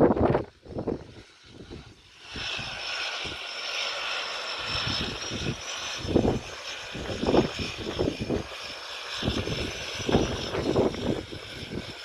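Propeller engines of a de Havilland Canada Twin Otter turboprop whining steadily as the plane comes in to land. The whine fades up about two seconds in, with wind buffeting the microphone in gusts throughout.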